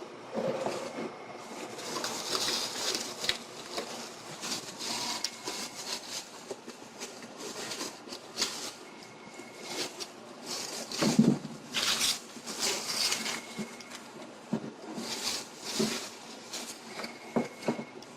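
Packaging being handled and unpacked: irregular rustling and crinkling with scattered clicks and knocks, the loudest knock about eleven seconds in.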